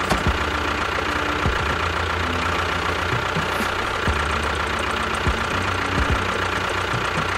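A motor running steadily, with a fast low rattle, a steady whine and a few knocks.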